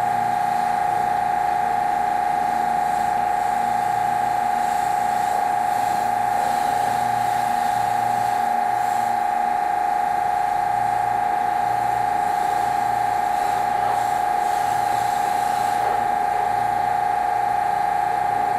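Electric pressure washer running with a steady high-pitched whine, and a lower hum that cuts in and out every second or so.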